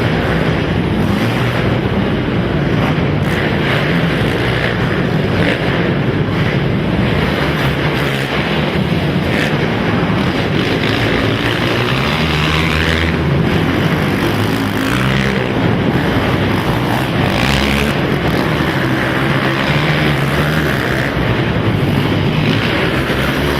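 Racing quad ATV engines running hard, their pitch rising and falling as the riders throttle on and off.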